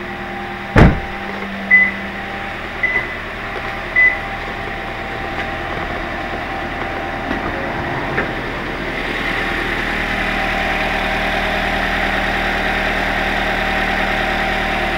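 A 2011 Toyota Corolla's four-cylinder engine idling steadily, which sounds normal to the owner. There is a loud thump of the car door shutting about a second in, then three short high beeps and a click near the middle. From about nine seconds, with the hood up, the engine is heard louder and more directly.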